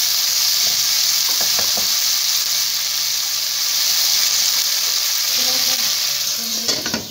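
Stuffed green chillies frying in a wok of hot oil with a little added water: a steady, loud sizzle. A few clicks come near the end as the sizzle quietens.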